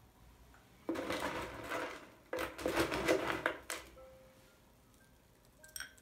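Granola clusters crunching and rustling under fingers in two long spells, then two small glass clinks near the end.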